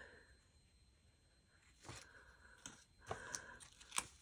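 Faint rustling and a few small sharp clicks as a strip of decorative tape is handled and lifted off a desk.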